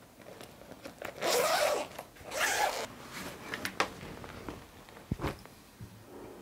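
Two short rasping swishes about a second apart, then a few light clicks and a dull thump.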